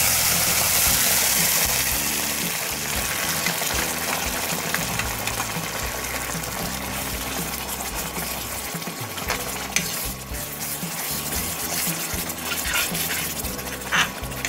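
Wet ground masala paste hitting hot oil in a kadhai: a loud sizzle at the start that eases after about two seconds into a steady frying sizzle. A spatula stirs the paste round the pan, with a few sharp clicks of the spatula against the pan, the loudest near the end.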